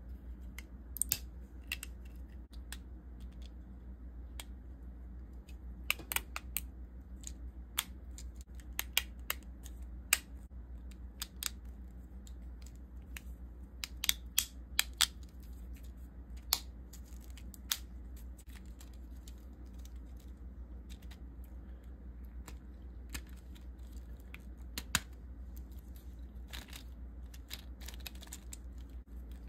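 Irregular sharp clicks and snaps of hard 3D-printed plastic parts of a ratchet-jointed figure being pressed and fitted together by hand, some coming in quick clusters. A steady low hum underneath.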